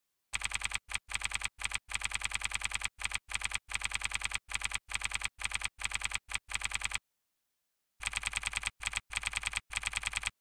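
Keyboard typing sound effect: rapid key clicks in quick runs with short breaks, matching caption text being typed out letter by letter, pausing for about a second past the middle.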